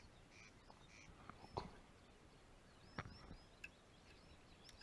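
Near silence with a small bird chirping, breaking into quick runs of short high notes in the second half. A couple of sharp clicks come about one and a half and three seconds in.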